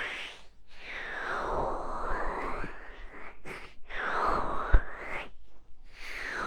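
Hands cupping and covering the ears of a binaural microphone, giving slow, muffled whooshing swells that sweep in tone as the palms close and open, about twice, with a soft low thump in each.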